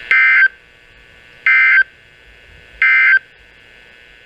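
Emergency Alert System SAME digital data tones: three identical short, buzzy bursts about a third of a second each, roughly 1.4 s apart. Bursts this short fit the end-of-message (NNNN) code that closes an alert.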